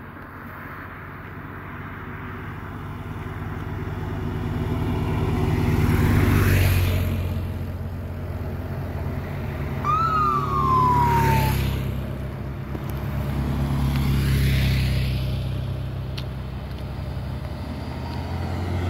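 Race-escort motorcycles passing one after another, engine sound swelling and fading several times. About ten seconds in, one gives a short siren yelp falling in pitch.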